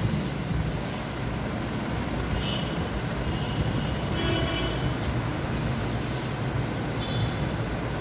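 Steady low rumbling background noise with no clear rhythm or change, with a few brief faint higher sounds over it.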